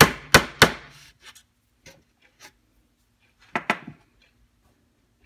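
Small hammer tapping tacks into a wooden wagon-bed end piece: three quick, sharp strikes about a third of a second apart, then the tapping stops. Near the end, a short double knock as the hammer is set down on the wooden bench.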